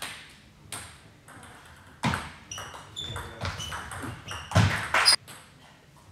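Table tennis ball clicking off bats and table in a rally, a sharp tick every half second or so. A few short high squeaks are heard, and the loudest sound comes about four and a half seconds in.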